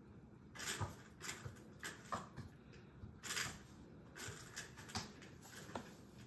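Irregular, faint scuffs and rustles of hands pressing a shell into a soft clay coil vessel and brushing across the board beneath it.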